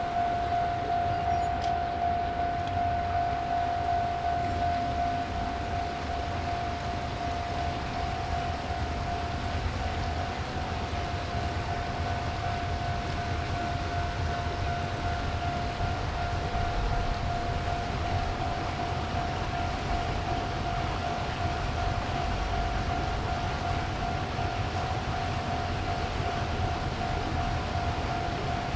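Japanese railway level-crossing warning bell sounding continuously, one steady high ringing tone with a fainter overtone, over a low rumble.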